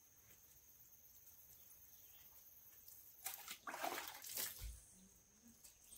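Faint background for about three seconds, then a second or so of water sloshing and splashing as a wash cloth is dipped and worked in a bucket while washing a car by hand.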